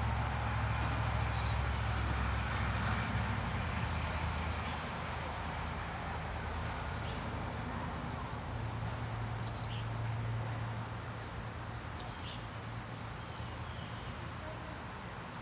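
Rural outdoor ambience: a low rumble of light road traffic that swells and eases, with scattered short, high bird chirps over it.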